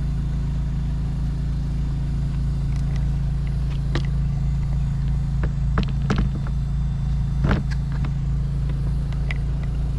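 Steady low engine hum running without change, with a few sharp clicks and knocks about four seconds in and again around six and seven and a half seconds.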